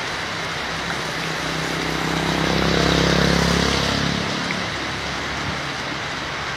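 Steady hiss of rain and wind, with a motor vehicle's engine passing by, growing louder to a peak about three seconds in and fading out soon after.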